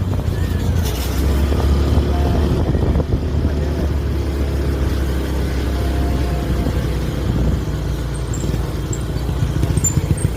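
Bus engine running with a steady, deep low sound.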